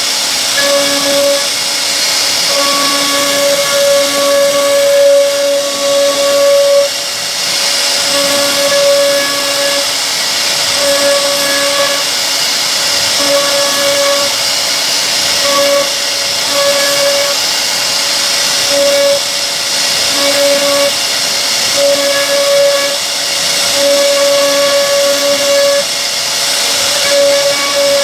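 CNC wood router carving a solid wood door panel: the spindle and cutter give a loud, steady hiss, while a pitched whine from the machine's axis drive motors switches on and off every second or so as the head moves.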